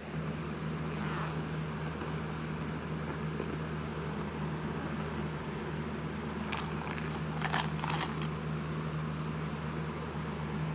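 Small electric motor of a mini cordless rotary tool running steadily with a constant hum, switched up or brought closer at the start, with a few light clicks and taps of handling about six to eight seconds in.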